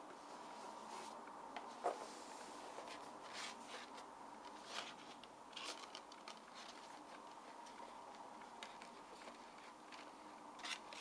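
A cardboard box set being handled: the outer sleeve slides off the inner box, then fingers move along the rows of disc cases, giving intermittent soft scrapes and light taps, the sharpest about two seconds in.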